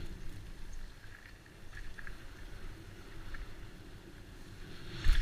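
Wind buffeting the microphone over a steady rush of creek water, with a few faint clicks and a sharp knock near the end.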